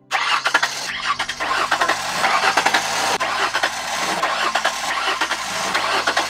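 Truck starter motor cranking the engine while it is powered by a small 1300 mAh LiPo drone battery, with the truck's own battery disconnected. It sounds like several short cranking clips spliced back to back, starting abruptly.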